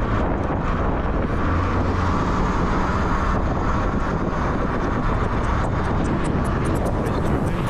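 Steady rush of wind buffeting an action camera's microphone while riding a Talaria Sting electric dirt bike, with heavy low rumble and no engine note.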